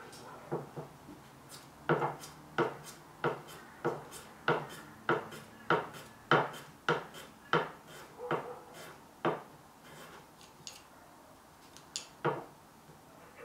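Small hand plane stroking along a 15-degree kumiko trimming jig, shaving the angled end of a thin hoop pine kumiko strip. The strokes come in a quick, even run of about a dozen, a little over half a second apart, then stop, with two more near the end.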